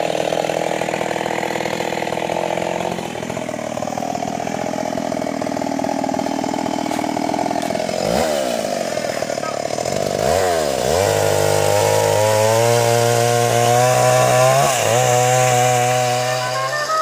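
Two-stroke petrol chainsaw cutting into a tree trunk at high revs, its pitch dipping and climbing back twice about halfway through as the chain bites into the wood.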